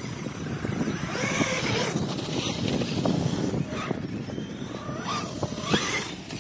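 Electric 1/16-scale RC trucks driving on sand: the motors whine, rising and falling in pitch several times as the throttle is worked, over a steady rush of noise.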